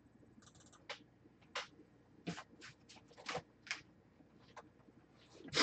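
A few faint, scattered clicks and taps, about eight spread over five seconds with short gaps between them.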